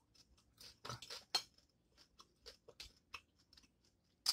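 Close-miked eating sounds: faint chewing and fingers picking at boiled blue crab, a scatter of small wet clicks and crackles with one sharper click near the end.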